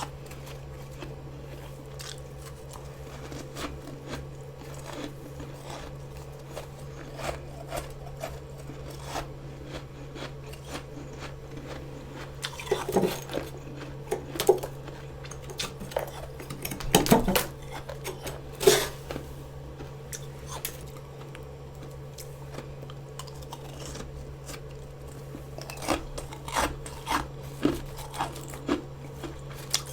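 A person biting and chewing freezer frost close to the microphone, in soft crunches. There are louder bites around the middle and a run of crunches near the end, over a steady low hum.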